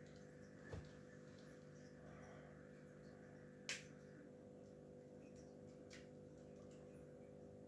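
Near silence: room tone with a steady low hum, broken by a soft knock about a second in and a sharp click near the middle.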